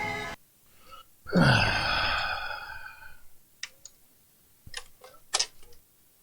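Music played from the VHS tape cuts off abruptly. Then comes a loud, drawn-out breathy sound falling in pitch, followed by about five sharp mechanical clicks.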